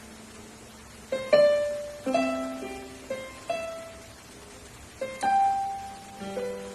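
Casio LK-65 electronic keyboard playing a slow melody of single notes, each starting sharply and fading away.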